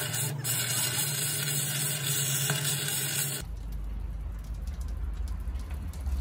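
Stick (arc) welding on the steel of an excavator chassis: the electrode arc crackles and hisses steadily over a low hum. About three and a half seconds in the hiss cuts off suddenly, leaving a deep low rumble with scattered faint clicks.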